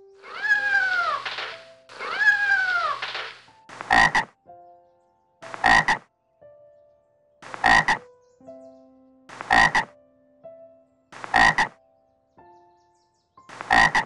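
A cat gives two drawn-out meows, each rising and then falling in pitch. Then a frog croaks in short calls, six times, about every two seconds.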